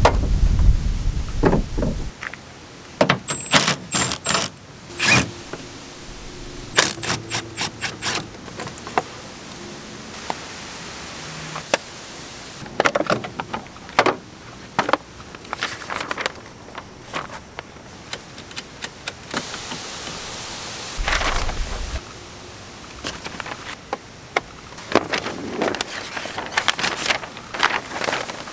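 A pickup truck's hood is unlatched and raised with a low thud, then a long run of scattered clicks, clinks and rattles as hands work among parts in the engine bay. There is a dull thump about two-thirds of the way through, and paper pages rustle near the end.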